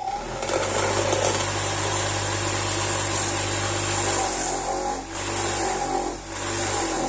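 Bench grinder running at full speed with a slotted paper honing wheel: a steady motor hum under a loud, high hiss from something pressed against the spinning wheel, which breaks off briefly three times near the end.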